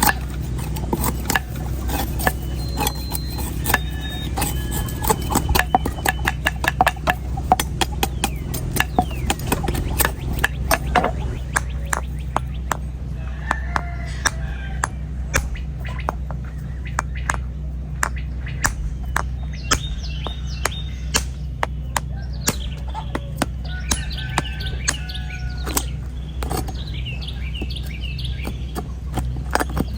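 Knife blade striking and cutting into an old coconut's hard, dry husk: many quick, irregular blows, thick at first and sparser after about a dozen seconds. Birds chirp throughout, more in the second half, over a steady low hum.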